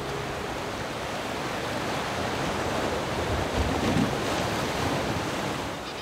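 Sea waves washing, with a steady wind rushing over the microphone.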